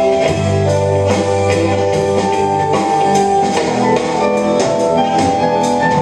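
A small band playing a song live, with a drum kit and cymbals keeping a steady beat under an electric guitar and long held melody notes.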